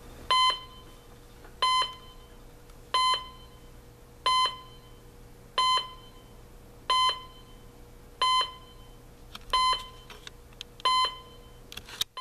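Emerson CKS1800 clock radio's alarm buzzer sounding: a short electronic beep repeated nine times, about one every 1.3 seconds.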